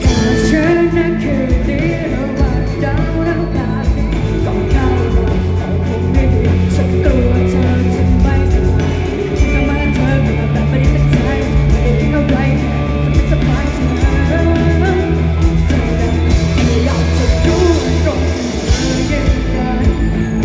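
Live band playing a rock song with a singer's voice over guitar, bass and drums.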